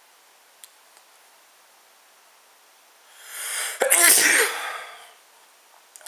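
A person sneezes once: a rising breath drawn in from about three seconds in, then one sudden, loud sneeze that dies away within a second.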